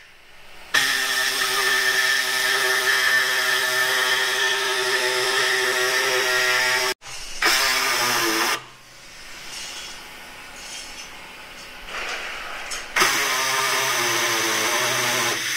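Cordless drill running at a steady pitch, drilling holes through the snowmobile's running board: one run of about six seconds, a short one, a quieter stretch, then another run near the end.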